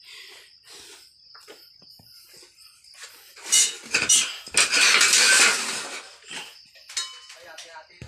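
Scattered light clinks and knocks, then a loud burst of hissing, rustling noise lasting about two and a half seconds.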